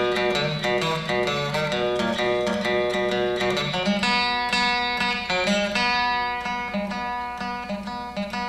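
Instrumental break of a live acoustic song: a plucked string instrument picking a quick run of notes over steady low accompaniment, with no singing.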